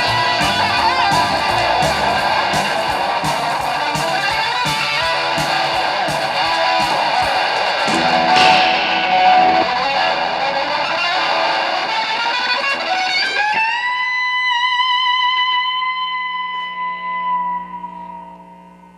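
Distorted electric guitar solo over drums; the drums stop about eight seconds in and the guitar carries on alone. About thirteen seconds in it slides up into one long held note with vibrato that slowly fades out.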